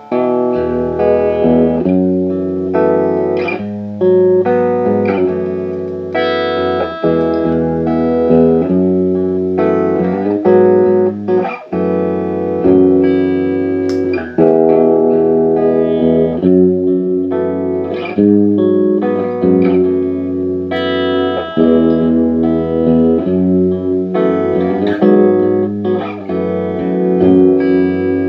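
Guitar played through a Boss RC-1 Loop Station pedal, chords and notes ringing on without a break, as a sound test of the pedal's repaired looping.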